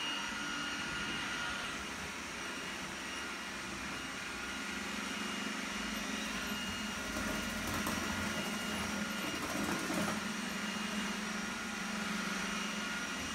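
Steady mechanical hum with a hiss and a few faint steady tones, like an appliance or fan running, with no distinct events.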